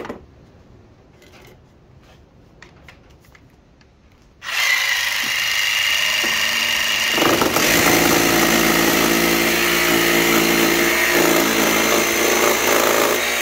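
Makita cordless jigsaw with a Bosch T101D wood blade cutting up through a grooved decking board about 30 mm thick. A few light handling knocks come first. The saw starts about four and a half seconds in, and a couple of seconds later the blade bites into the board and its steady buzz deepens as it cuts.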